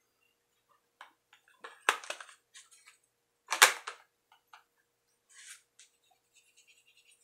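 A large fixed-blade knife being handled and put into its rigid riveted sheath: scattered clicks and taps, with two loud, short snaps about two seconds and three and a half seconds in, the second the loudest.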